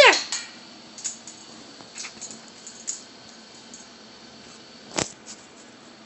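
Cape parrot gives a short call that slides sharply down in pitch, followed by scattered light clinks and taps, the sharpest about five seconds in.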